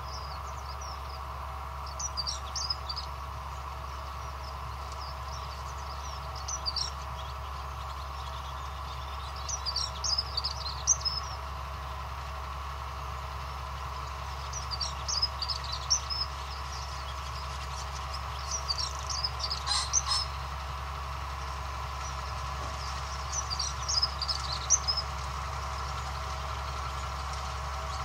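A tractor pulling a hay tedder, its engine a steady, far-off drone. A songbird sings short high phrases over it every three to four seconds.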